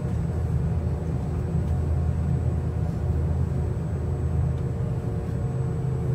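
Airliner cabin noise heard from a window seat: the jet engines run steadily under a deep, even rumble as the plane rolls along the ground, with a few faint steady tones above it.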